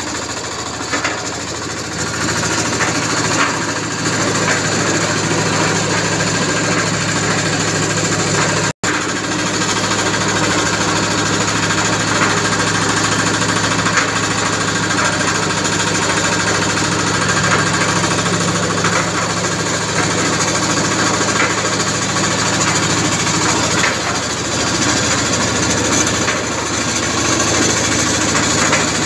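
Single-cylinder Yanmar TF85R diesel engine running steadily under test, driving a 500-litre concrete mixer drum, with a rapid knocking clatter. The sound drops out for a split second about nine seconds in.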